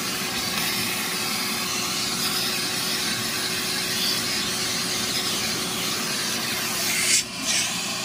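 Ridgid 16-gallon 6.5 peak HP wet/dry shop vacuum running steadily, air rushing into the slim crevice nozzle as it is drawn over car floor carpet. The sound turns briefly louder and hissier about seven seconds in.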